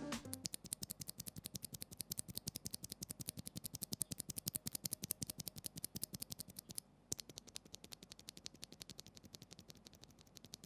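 Mechanical keyboard switches clicking in a quick, even run of small, quiet clicks, many a second, with a brief pause about seven seconds in.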